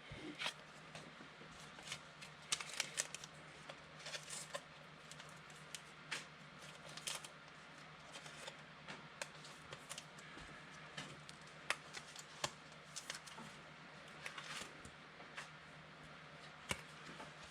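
Faint rustling and light clicks of trading cards being slid and flipped through by hand, in scattered bursts.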